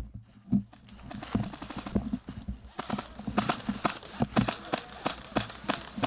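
Footsteps crunching through thick dry fallen leaves, sparse at first, then quicker and louder from about halfway as the walker picks up pace.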